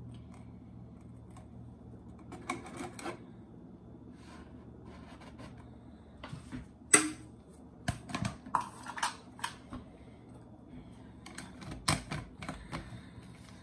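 Scattered clicks and taps of a small plastic spoon against a measuring cup and the rim of a plastic juice bottle as stevia is spooned in, the sharpest about seven seconds in. Near the end, more clicks as the bottle's plastic screw cap is put on.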